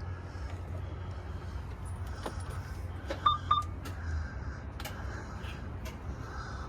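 Steady low hum with scattered clicks and handling noises inside a truck cab. Two short high electronic beeps sound a little past halfway.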